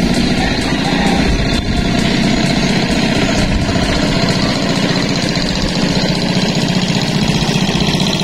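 An engine running steadily at an even speed, with a fast, even pulse.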